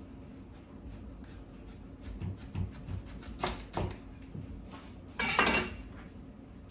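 Kitchen knife cutting through a small hard-skinned squash on a cutting board: a few sharp knocks, then a louder rasping cut lasting about half a second, about five seconds in.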